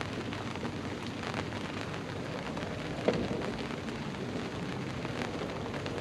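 Steady rain falling, a dense patter of drops over an even hiss, with a single sharper knock about three seconds in.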